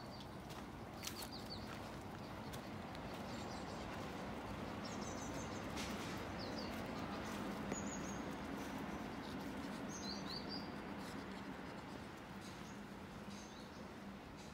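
Outdoor background with short, high bird chirps every couple of seconds over a low steady hum that grows louder through the middle and then eases off.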